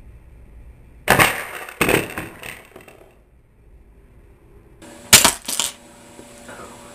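A wooden spring-loaded mousetrap snapping shut against a tabletop with a sharp crack about a second in, followed by a few smaller knocks and rattles. Another loud crack with a short rattle comes about five seconds in.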